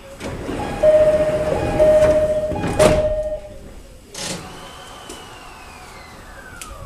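209-series electric train running, with loud running noise and a steady high tone, broken twice, over the first three seconds and a sharp clack about three seconds in. In the second half a single electric motor whine falls steadily in pitch as the train slows into a station.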